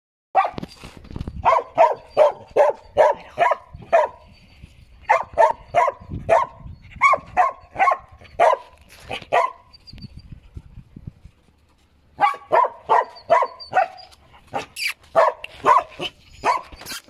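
Puppy barking over and over in quick runs of about three barks a second, with a lull of about two seconds around the middle.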